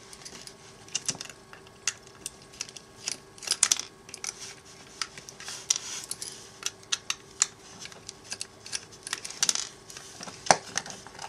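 Irregular small clicks and ticks of a Phillips screwdriver working out tiny screws and of plastic parts being handled as a model locomotive's chassis is taken apart, over a faint steady hum.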